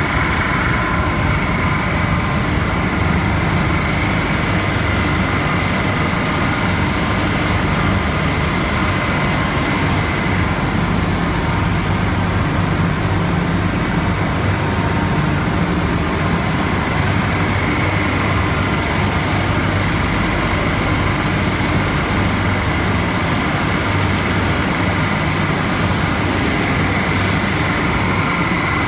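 Textile waste recycling line, with its openers, cleaners and carding rolls, running at full speed. It makes a loud, steady hum with a high whine above it that weakens for a few seconds in the middle.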